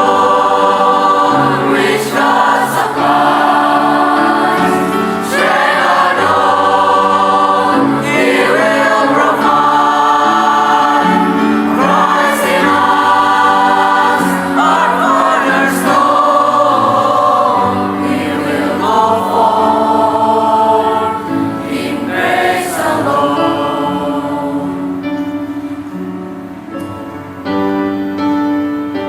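Junior high school choir singing a praise song in harmony, with long held notes; it grows quieter over the last few seconds.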